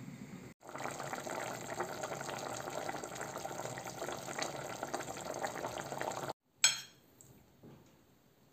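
Beef and vegetable stew bubbling in a pot at a steady simmer, a dense bubbling with fine pops. It cuts off abruptly about six seconds in, followed by a single sharp click.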